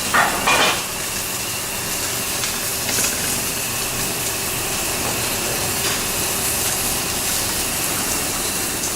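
Steady hiss of a working restaurant kitchen, with food cooking on the stove and grill. Short clatters come about half a second in and again about three seconds in.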